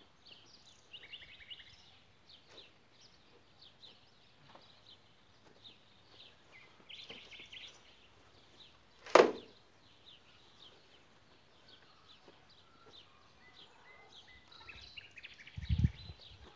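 Small birds chirping throughout, with one sharp knock about nine seconds in. Near the end comes a dull thud as a wood-framed wire-mesh panel is laid on the grass.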